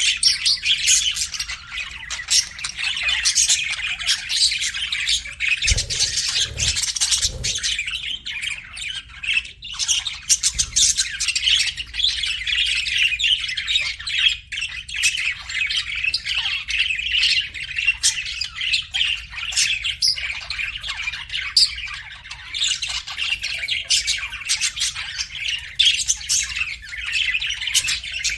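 Several budgerigars chattering and chirping together without a break, a dense mix of warbles, chirps and short squawks. A few soft low thumps come about six to seven seconds in.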